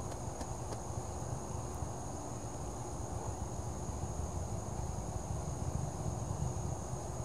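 Crickets chirring steadily in a high, unbroken trill at night, over a continuous low rumble.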